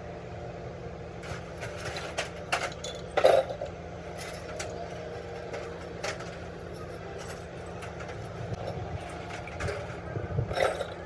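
Scattered clinks and knocks of hand tools and metal parts being handled, the loudest about three seconds in and a few more near the end, over a steady low hum.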